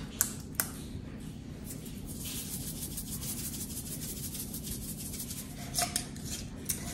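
Salt being dispensed from a small salt container over a crockpot: a steady dry rasping lasting a few seconds. There are a couple of light clicks at the start and more clicks near the end as the container is handled.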